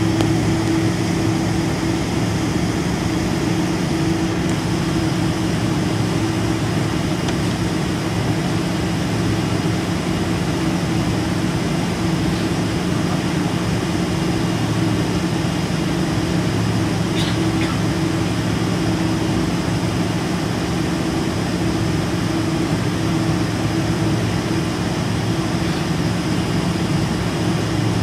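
Boeing 747-400's General Electric CF6-80C2 turbofans running at low taxi thrust, heard inside the cabin over the wing: a steady hum with a few low, even tones over a constant rushing hiss.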